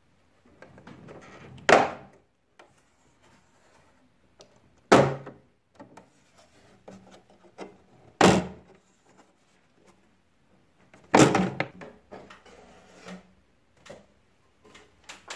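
Plastic grabber clips of an air conditioner's front panel snapping loose one after another as the panel is pulled off by hand: four sharp snaps about three seconds apart, with quieter plastic handling noise between them.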